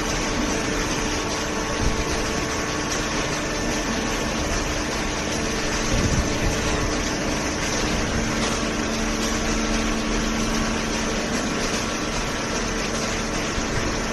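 Hydraulic paper baler running, its power unit giving a steady mechanical hum with a few held tones. A new lower tone joins about eight seconds in and fades a few seconds later.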